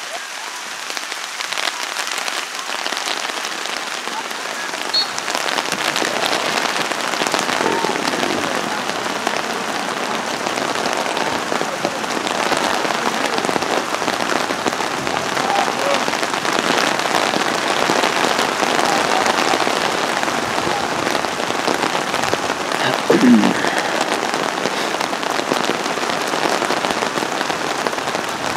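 Heavy rain falling steadily, growing louder a few seconds in. A brief shout rises above it late on.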